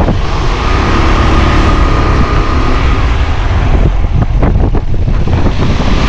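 Loud wind noise rushing over the camera microphone on a moving KTM motorcycle, with the bike's engine and tyre noise as a steady low rumble underneath. A faint steady whine sits over it in the first half.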